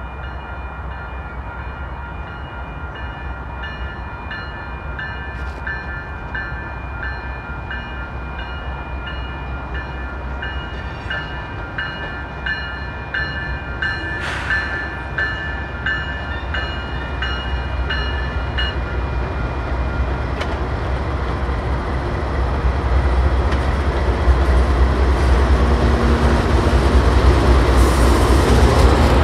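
Level-crossing warning bell ringing in a regular beat, which stops about two-thirds of the way through. Beneath it, the rumble of approaching Canadian Pacific GE AC4400CWM diesel locomotives builds steadily, growing loudest as they pass close by near the end.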